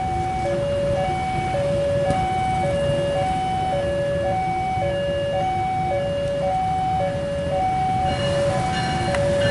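Railway level-crossing warning alarm sounding a steady two-tone electronic signal, a high note and a low note alternating about every half second, warning of an approaching train. Under it runs a low rumble of engines that grows busier near the end as the diesel locomotive draws closer.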